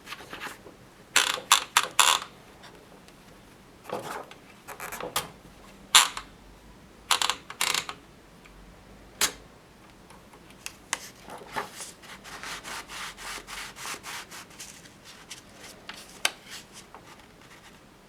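Keys and typebars of a 1950s Kolibri portable typewriter clacking as it is typed on, in irregular bursts of strokes, with a quicker even run of lighter clicks about two-thirds of the way through.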